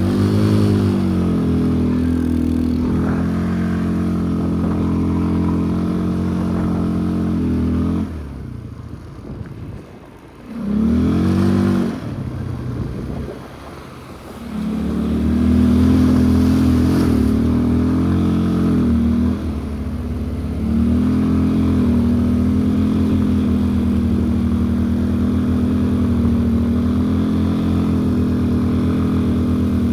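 ATV engine running at high revs under throttle. Around eight seconds in it drops back towards idle, gives one short rev near eleven seconds, then is revved up and held steady again from about fifteen seconds.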